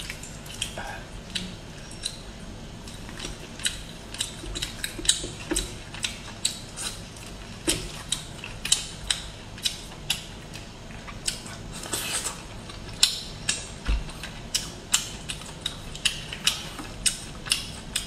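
Cooked lobster shell cracking and snapping as it is pulled apart by hand: an irregular string of sharp clicks, about two a second.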